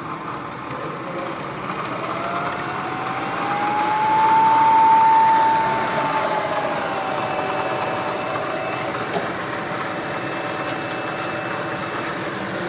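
Milling machine motor running, its whine climbing in pitch and growing louder about two seconds in, then dropping back to a lower steady pitch a few seconds later as its speed changes.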